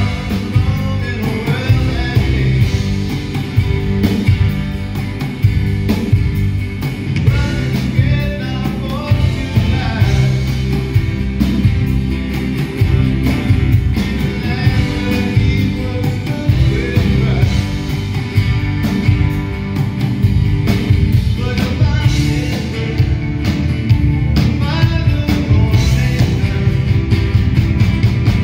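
Live rock band playing: guitars and a drum kit under a man singing lead into a microphone, heard through the hall's sound system.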